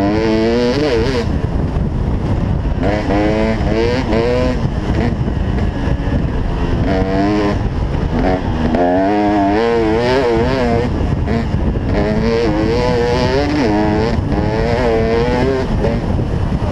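A 2008 KTM 300 XC-W's two-stroke single-cylinder engine being ridden hard, its revs rising and falling again and again with the throttle.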